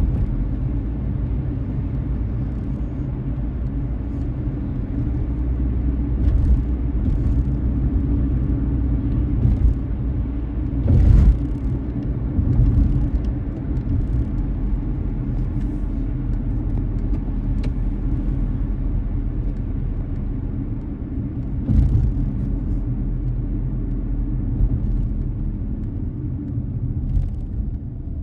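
A car driving: steady low road-and-engine rumble heard from inside the cabin, with a couple of short thumps about eleven and twenty-two seconds in.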